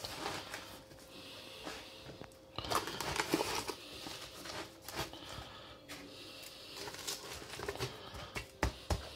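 Faint, irregular rustling with scattered sharp clicks as a hand rubs and presses a dry cure of salt and sugar onto pork belly in a plastic tub.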